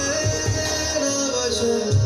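Instaplay Insta Storm 4.1-channel soundbar and its external subwoofer playing a song with singing over a steady bass beat, fed from a phone through the aux input.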